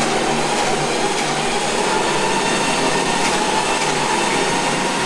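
Electric winch motor on an off-road wrecker running with a steady whine, hauling in wire rope to raise the boom.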